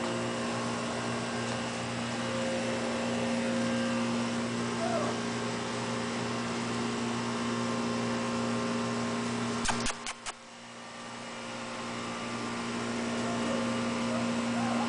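A steady mechanical hum with several fixed tones runs throughout, broken by a few sharp clicks about ten seconds in. Faint short squeaks come through twice.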